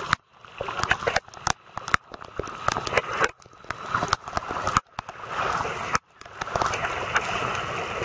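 Feet wading through shallow floodwater, a sloshing splash with each step about every second or so, over the rush of moving water, with scattered sharp clicks.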